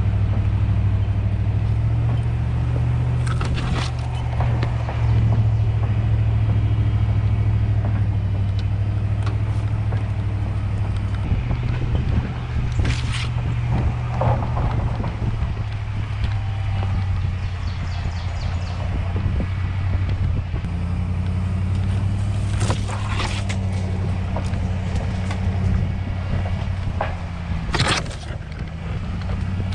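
Pickup truck engine running steadily as the truck drives slowly along a rough dirt track through woods. A few sharp scrapes and snaps sound as brush and branches strike the truck.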